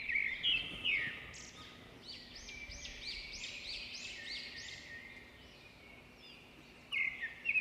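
A bird singing faintly in the background: a quick run of about seven similar arching chirps, roughly three a second, with a few shorter chirps near the start and again near the end.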